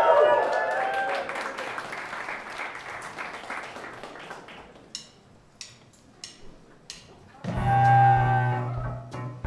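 Audience applause and cheering that dies away over about four seconds, a few stray claps, then about seven and a half seconds in the band comes in with a loud held low chord, cello prominent.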